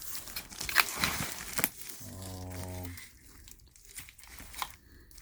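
Packing material crinkling and hard plastic CGC comic slabs clicking against each other as they are lifted out of a shipping box. A brief low steady hum comes about two seconds in, followed by a few quieter taps.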